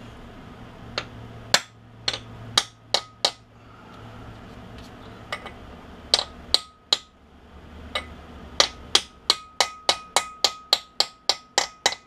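Hammer blows on a steel press-kit cap, driving the rear grease seal into a disc brake rotor hub: sharp metallic strikes, a few spaced ones at first, then a quick run of about four a second near the end, with a ringing note sounding behind the later blows.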